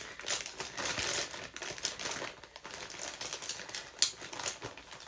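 Rapid small clicks and clattering of makeup brushes and plastic makeup items being rummaged through while searching for a dual-ended brush, with one sharper click about four seconds in.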